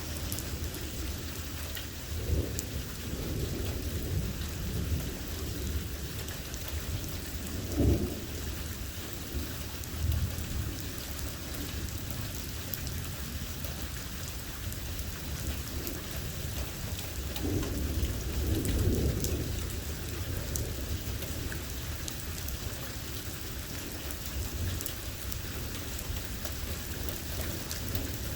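Heavy thunderstorm rain falling steadily, with thunder rumbling several times: a sharp clap about a third of the way in and a longer rolling rumble past the middle.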